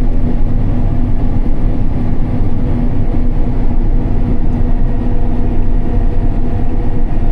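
Combine harvester running loud and steady: a heavy engine and machinery drone with a constant hum over it.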